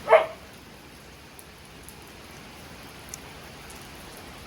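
Steady rain falling, an even hiss with a few faint drop ticks. A dog barks once, loudly, right at the start.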